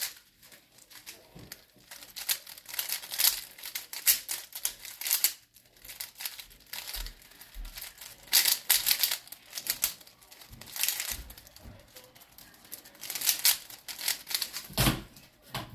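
A Rubik's Cube being turned fast in a timed speed solve: rapid plastic clicking and clacking of the layers in quick flurries with short pauses between. A single thump comes near the end.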